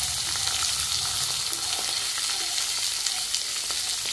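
Raw halved shallots, green chillies, garlic and ginger frying in hot oil in a kadai, a steady high-pitched sizzle.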